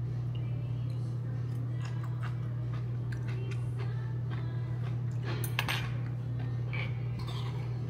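Spoon and chopsticks clinking lightly against ceramic dishes during a meal: scattered small clicks, with a louder cluster about five and a half seconds in, over a steady low hum.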